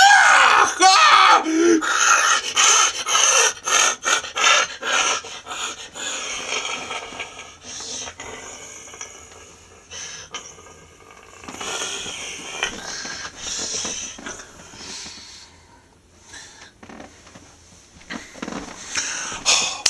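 A person voicing a monster with the mouth: growling and heavy panting breaths, mixed with sharp clicks and rustling, loudest in the first few seconds and fading to faint breathy sounds before picking up again near the end.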